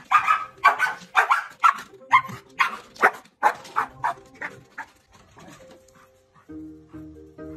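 A dog barking in a rapid string of about a dozen barks, roughly two a second, that grows fainter and stops about five seconds in.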